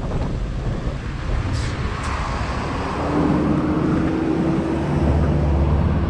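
Wind rushing over a bicycle-mounted camera's microphone while riding, with a motor vehicle's steady engine drone coming in about three seconds in and getting a little louder.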